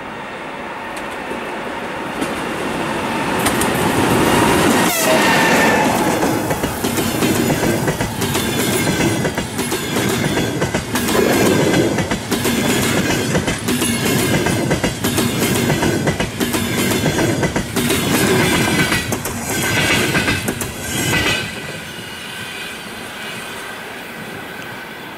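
EP20 electric locomotive and its double-deck passenger coaches passing at speed. The locomotive's noise builds to a peak about five seconds in, with a falling tone as it goes by. The coaches follow with a rhythmic clickety-clack of wheels over rail joints, and the sound drops away after about twenty-one seconds as the train recedes.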